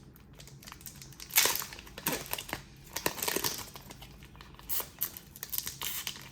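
Foil wrapper of a Pokémon card booster pack crinkling and crackling as it is handled and opened. The crackles come irregularly, the loudest about a second and a half in.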